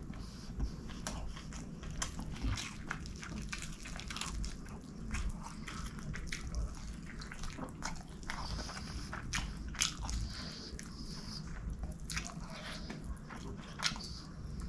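Close-miked eating sounds: a man chewing rice and chicken curry with wet mouth clicks and smacks, while his fingers squish and mix the rice on the plate. Many small sharp clicks come irregularly.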